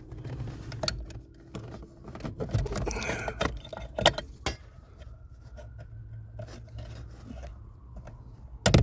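Clicks, scrapes and light rattling of plastic wiring-harness connectors being pushed and pulled loose under a car's dashboard, with a loud knock near the end.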